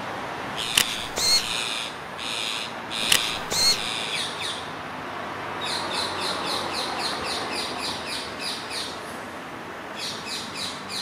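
Rose-ringed parakeets calling with shrill, harsh screeches: several bursts in the first few seconds, then a quick run of short repeated calls, about three a second, and a few more near the end. Steady background noise runs underneath.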